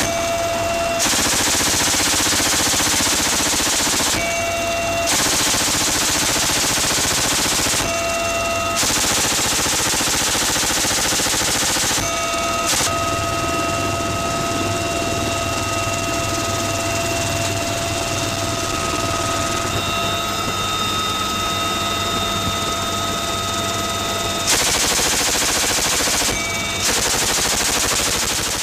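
Helicopter door-mounted machine gun firing a series of long bursts, each about one to three seconds, with short pauses between. In the middle there is a break of about ten seconds. The helicopter's steady turbine whine and rotor run underneath and are heard plainly between bursts.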